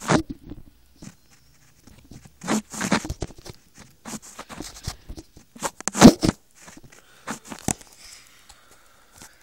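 Handling noises: scattered rustles, scrapes and knocks as plush Furby toys are moved about on a tabletop. The loudest knock comes about six seconds in.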